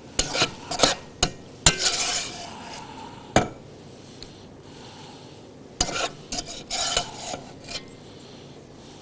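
Kitchen utensils clinking and scraping against cookware in two short spells, with a longer scrape about two seconds in.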